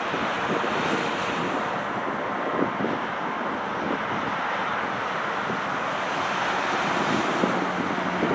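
Steady jet roar from an Airbus A340-313X's four CFM56 engines as the airliner decelerates during its landing rollout, mixed with wind on the microphone.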